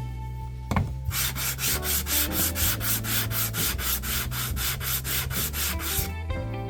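Sandpaper being rubbed by hand over a hardwood board in quick back-and-forth strokes, about four a second, with a short pause near the start and another near the end.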